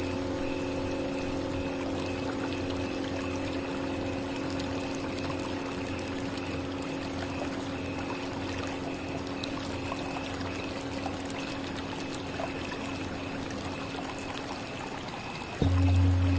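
Tibetan singing bowls ringing with several sustained tones that slowly fade, the highest one wavering, over a steady hiss. About a second before the end, deeper bowl tones start suddenly and much louder.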